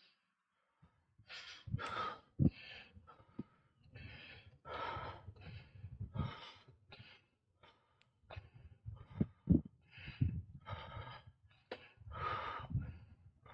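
A cyclist's heavy, rapid breathing, huffing and puffing with the exertion of pedalling, starting about a second in.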